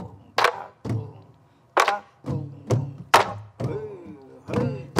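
Several sori-buk, the barrel drums of pansori, played together in a practice jangdan: sharp, uneven stick knocks on the wooden shells over low booming thuds from the drumheads. A voice calls out along with the beat about three and a half seconds in.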